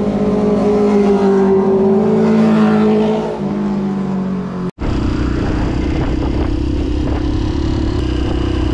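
An engine idling with a steady hum that lifts a little and settles. After an abrupt cut about five seconds in, a motorcycle is heard under way, its engine running under a rush of wind noise.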